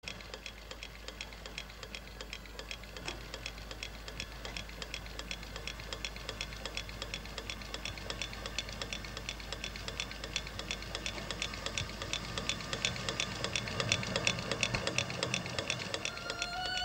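Steady, even mechanical ticking, about four or five ticks a second, over a low steady hum, growing slowly louder.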